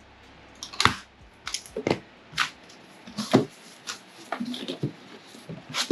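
Packaging being handled: scattered rustles, scrapes and about half a dozen short, sharp knocks and taps.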